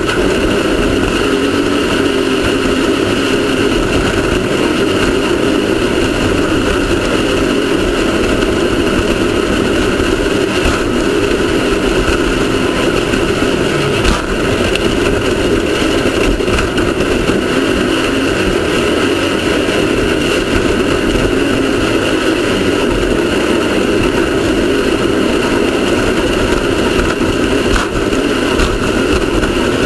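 Off-road race car's engine running steadily and loudly without a break.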